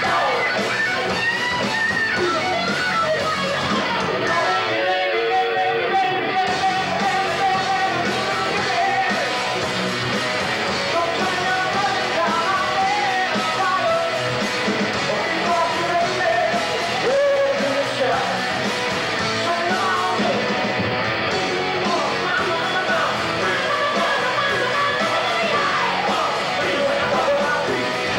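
Rock band playing live: electric guitars, bass and drums, with a singer's vocals over them.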